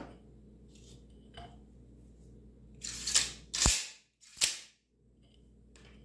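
Staple magazine of a Senco pneumatic stapler being loaded: a few faint clicks, then three loud sharp metal clacks in quick succession about three seconds in as the spring-loaded magazine is slid and snapped shut.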